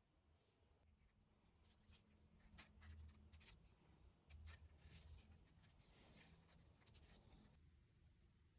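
Faint scratching and scraping in a run of quick strokes, like a small hand tool or brush worked over a watch part. It starts about two seconds in and stops near the end.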